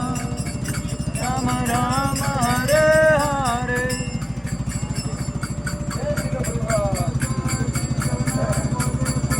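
Devotional kirtan music: a voice singing over a fast, steady beat of jingling percussion and drum. The singing drops out about four seconds in while the beat carries on.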